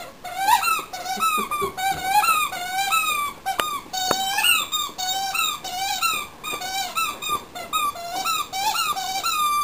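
Squeaky rubber dog toy squeaking over and over as the dog bites down on it, about three short squeaks a second.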